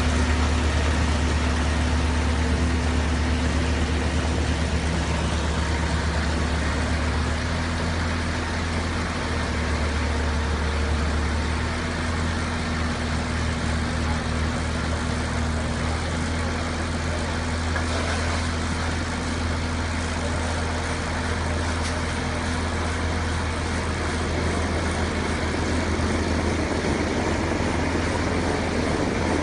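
Tractor engine running steadily while driving a New Holland Roll Baler 125 round baler: a continuous low drone whose tone shifts slightly a few times.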